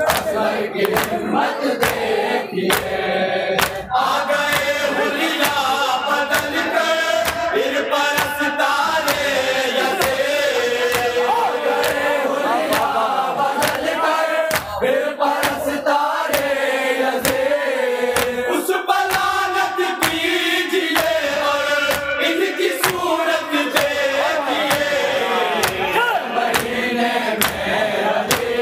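A group of men chanting an Urdu salam in unison through a public-address microphone, with a steady beat of sharp slaps from rhythmic chest-beating (matam) by the mourners.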